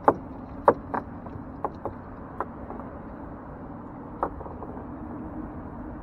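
Knocks against a small boat's metal hull as the chop slaps it: a few sharp ones in the first second, then sparser and fainter, over a steady low hum.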